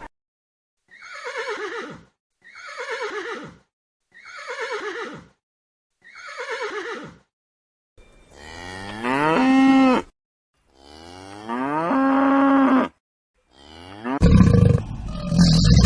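Cow mooing: two long, loud moos that rise and then hold a steady pitch, after four short, identical falling calls from another animal. Near the end a loud, rough roar sets in.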